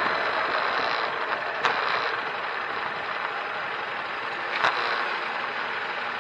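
Steady road and engine noise of a moving car, heard from inside the cabin, with two brief clicks about three seconds apart.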